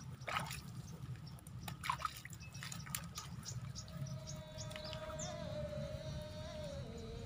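Scattered sharp drips and trickles of water over a low steady rumble. About halfway through, background music comes in with a long held note that steps down in pitch near the end.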